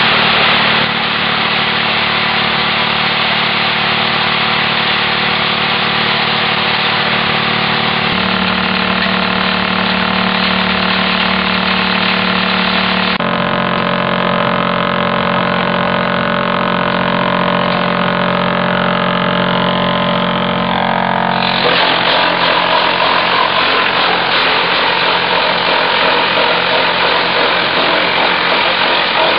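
Industrial wood and veneer waste chipper (type 500 EB) running with a steady mechanical hum. About 21 seconds in it grows louder and rougher as wood is chipped.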